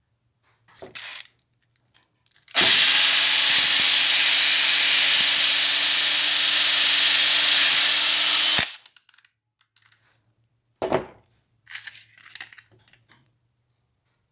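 Loud, steady hissing rush from a workshop tool used on an old step punch. It starts abruptly about two and a half seconds in and cuts off abruptly about six seconds later. Short knocks and scuffs come before and after it.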